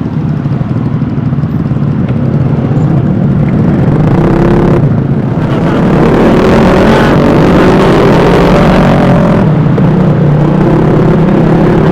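A Vespa S 125 scooter's small single-cylinder engine running while riding, with heavy wind noise on the microphone. The sound gets louder about six seconds in, and engine pitch wavers up and down as the scooter, or scooters riding alongside, speed up.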